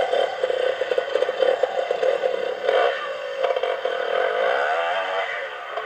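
Yamaha 250 air-cooled two-stroke trials motorcycle engine revving in short uneven bursts as it is ridden over rocks. A longer rising and falling engine note comes about four to five seconds in.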